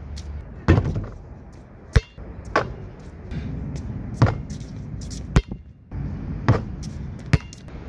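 Basketball shots at an outdoor hoop: a basketball thudding and bouncing, about seven sharp impacts roughly a second apart, some heavy and low, some short and crisp.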